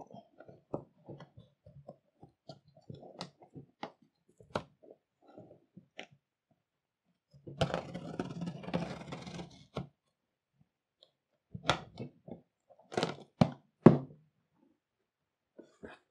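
A yellow safety box cutter slits packing tape on a cardboard box. There are scattered light scrapes and clicks, then a longer stretch of tearing and scraping as the blade runs along the tape about halfway through. Several sharp cardboard knocks and scrapes come near the end as the box is opened.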